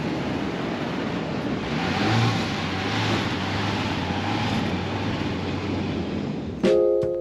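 A car driving on the beach, its engine and tyres a steady rush with a low hum coming in about two seconds in, over the noise of wind and surf. Near the end, background music with drum hits starts suddenly.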